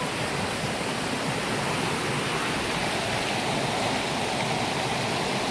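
River water rushing, a steady even wash of noise.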